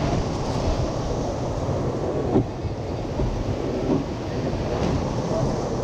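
Wind buffeting the microphone of an action camera mounted in a surf boat, over rushing surf and water as the boat moves through the breakers, with a few sharp knocks.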